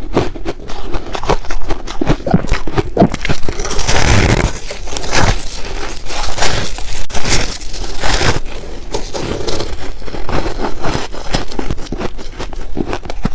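Close-miked chewing of ice, a dense run of irregular crackling crunches, heaviest about a third of the way in.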